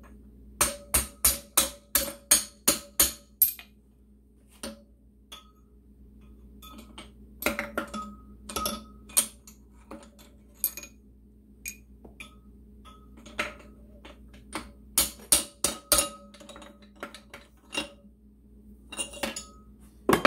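Hammer taps on metal driving the wrist pin out of a Moto Guzzi piston, done cold without heating the piston. The taps come in runs of sharp, ringing strikes, about three a second, with pauses and a few single taps between.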